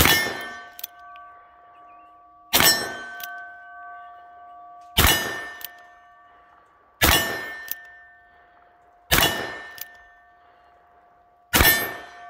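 Six shots from a Ruger Blackhawk single-action revolver chambered in 10mm, fired slowly, about one every two seconds. Each shot is followed within a second by the clang of a steel silhouette target being hit, which rings on with a steady tone as it fades.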